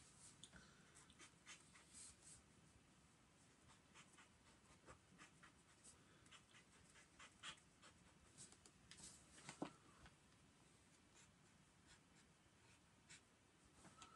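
Faint scratching and tapping of a marker pen's tip on a sketchbook page as it colours in, in short irregular strokes, with one louder tick about two-thirds of the way through.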